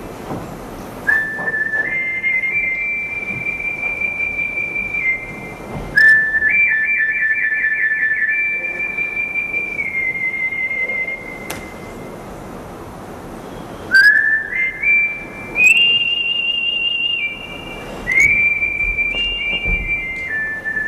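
Someone whistling a tune, one clear note at a time in four short phrases, with a quick warbling trill about six seconds in. A few sharp clicks come between the phrases.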